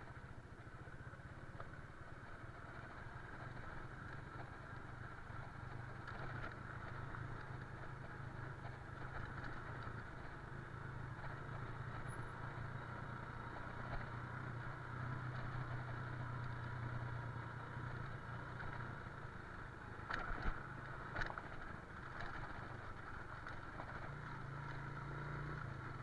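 Motorcycle engine running steadily at low speed while the bike is ridden slowly, heard from the rider's position. A couple of short, sharp knocks come about twenty seconds in.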